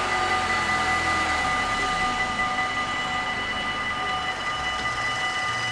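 Level-crossing warning bells ringing steadily while the half-barriers rise, signalling that the crossing is clearing after the train has passed; they cut off just at the end. A waiting car's engine runs low underneath, louder near the end.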